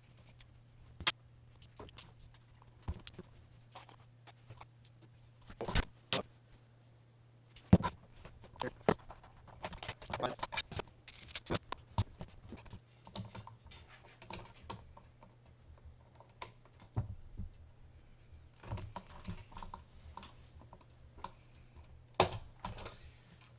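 Screws and a hand screwdriver clicking and knocking against a hoverboard's plastic shell as its screws are taken out and the case opened, with irregular clicks and a few short scrapes. A faint steady low hum lies underneath.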